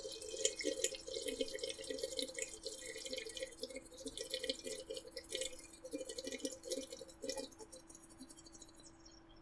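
A person slurping and drinking water: a quick, irregular run of wet mouth clicks and sips that stops about three-quarters of the way through.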